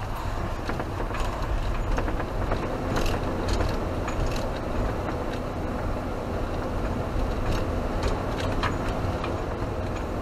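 Camping car driving, heard from inside the cab: a steady low engine and road rumble with frequent light clicks and knocks.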